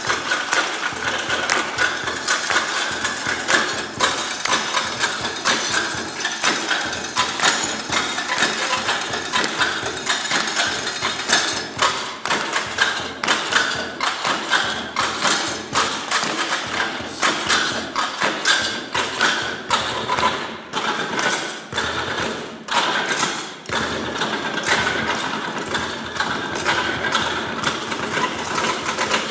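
Stepladders played as drums: a fast, steady rhythm of sharp taps and thuds.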